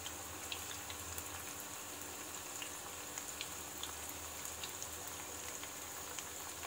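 Vegetable Manchurian balls deep-frying in hot oil in a kadhai: a steady sizzle with scattered small pops.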